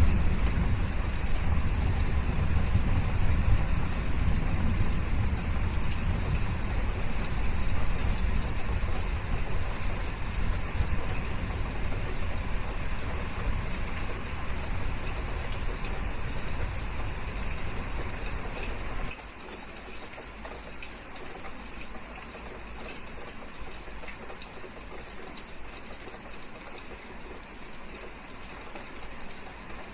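Steady rain noise with a deep low rumble underneath. About two-thirds of the way through it cuts off abruptly to quieter, lighter rain without the rumble.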